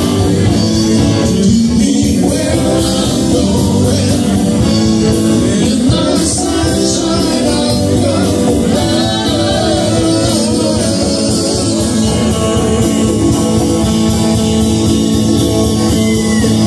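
Live rock band playing loudly, with electric guitars, a drum kit keeping a steady beat and a man singing.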